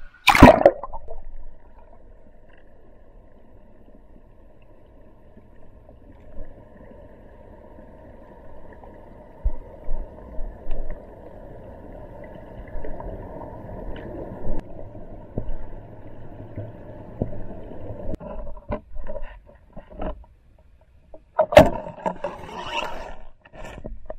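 A splash as the camera plunges under the water, then muffled underwater noise with scattered knocks and gurgles as the diver moves along the bottom. A louder burst of splashing and bubbling comes about 21 seconds in.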